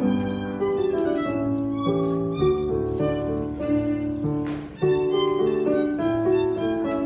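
Solo violin playing a gavotte, a run of bowed notes. The playing breaks off briefly about four and a half seconds in, then the melody resumes.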